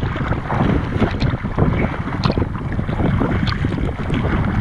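Wind rumbling on the microphone over water slapping against a sea kayak's hull, with a few short knocks.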